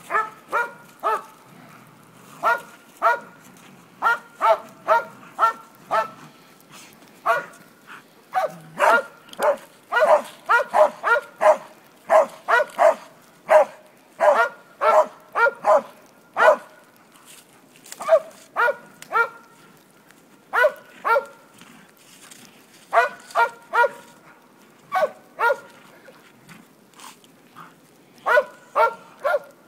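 A dog barking at a decoy in quick runs of two to five barks, with short pauses between the runs, the barking densest about a third to halfway through. This is typical of a Mondioring guard-of-object exercise, with the dog standing its ground beside the object it guards.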